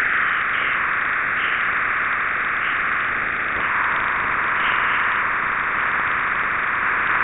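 A NASA space recording of radio emissions turned into sound: a steady hiss of static in a narrow high band, with slight swells.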